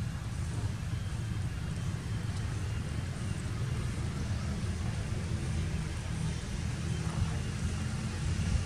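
Steady low rumble with a faint hiss over it, unbroken outdoor background noise with no clear animal calls.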